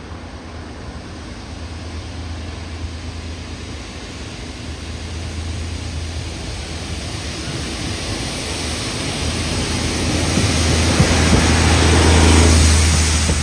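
Pair of Windhoff multi-purpose vehicles (DR98976 and DR98926) approaching on diesel power and passing directly below: a steady low engine hum under wheel and rail noise that builds steadily, loudest about twelve seconds in as the lead unit goes underneath.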